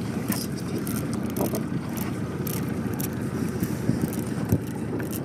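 A small boat's outboard motor running steadily, with water and wind noise over it.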